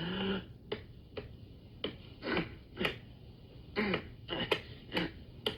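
A series of short, sharp taps or knocks at uneven spacing, about a dozen in all, some with a brief falling pitch. It sounds like work being done on a wall.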